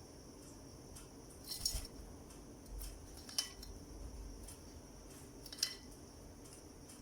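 Lovebird bathing: a few scattered light clinks and small splashes, three of them sharper than the rest, over a faint steady background.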